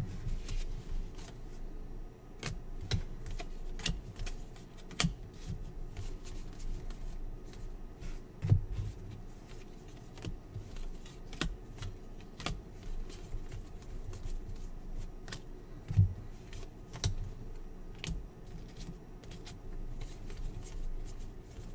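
A stack of NBA Hoops basketball trading cards being flipped through by hand, each card snapping and sliding off the next in quick, irregular clicks, with a couple of louder knocks about eight and sixteen seconds in.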